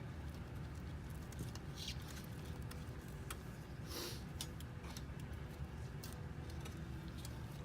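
Faint clicks and a short scrape about four seconds in as small plastic and metal parts of a car navigation unit are handled, over a low steady hum.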